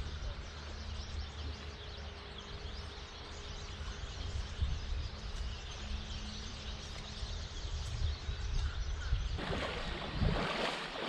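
Steady rush of a flowing spring stream with wind rumbling on the microphone and faint bird chirps. Near the end, a louder splashing as a person in waders wades out of the shallows.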